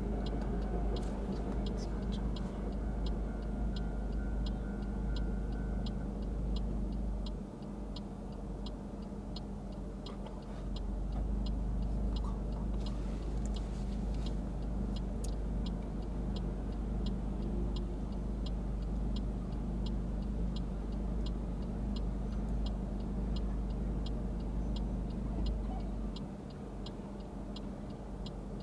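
A car's turn-signal relay ticking steadily and evenly, over the low steady hum of the engine idling, heard from inside the cabin while the car waits to turn right.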